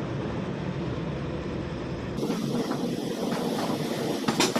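Steady running noise of a moving passenger train heard from aboard, wheels and coach rumbling. The sound changes abruptly a little over two seconds in, and there is one sharp click near the end.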